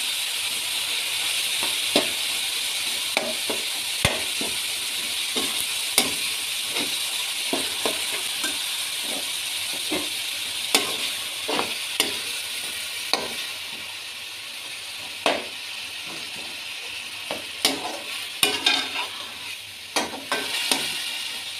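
Minced meat with onion and tomato frying in oil in a steel pot: a steady sizzle, with a steel spoon scraping and clinking against the pot as the mince is stirred. The sizzle eases a little after the middle, and the spoon strokes come quicker near the end.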